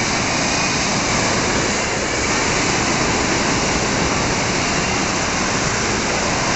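Hot air balloon's propane burner firing in one long, steady blast.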